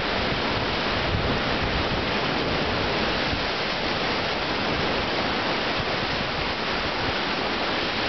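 Pacific Ocean surf surging and foaming through a narrow channel between rocks, a steady rushing of water, with wind buffeting the microphone.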